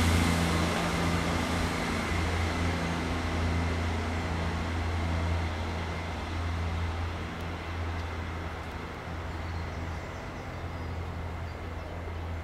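Diesel multiple unit's underfloor engine running with a steady low drone, fading over several seconds as the train draws away.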